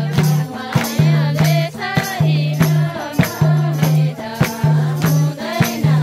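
Music: a song with singing over a repeating bass note and regular percussion hits.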